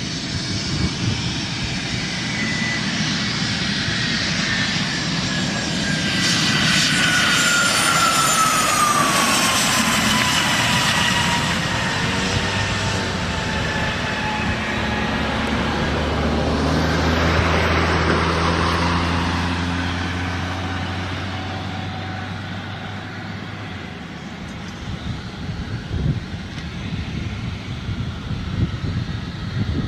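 Learjet 25's twin turbojet engines at takeoff power, a loud jet whine that falls steadily in pitch as the aircraft passes, then a lower steady drone that fades over the last few seconds.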